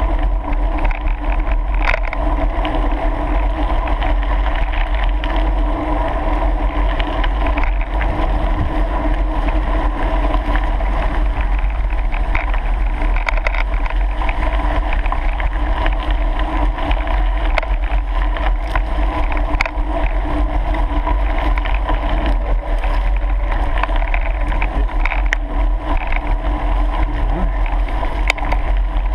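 Steady rushing and rumbling from riding a bicycle along a gravel track: wind buffeting the camera's microphone over the rumble of tyres rolling on the gravel. The noise stays unchanged throughout.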